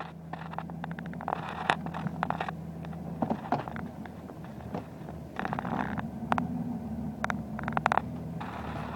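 2005 Dodge Ram's 5.9-litre Cummins inline-six diesel idling roughly, with irregular sharp knocks and clatter over a steady low hum. The hum grows a little louder about five seconds in. The roughness occurs only at idle.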